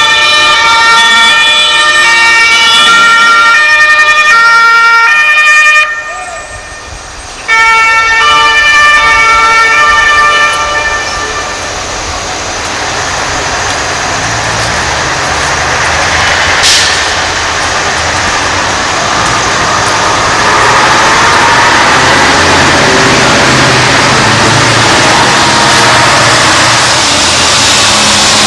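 Fire engine sirens sounding, their tones stepping back and forth between pitches, briefly breaking off about six seconds in and stopping about ten seconds in. After that, heavy truck engines and street traffic run steadily.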